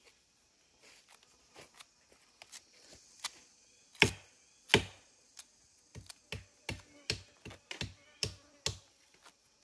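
Hands plucking feathers from a dead bird: short sharp clicks and taps. Two louder knocks come about four seconds in, then a run of quicker taps about three a second, over a faint steady high hiss.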